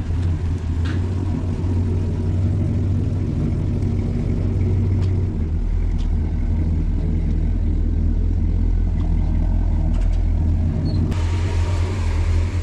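A car engine idling with a steady, deep low rumble. About halfway through, the lowest part of the rumble grows stronger, and near the end a rougher, hissier exhaust sound joins in.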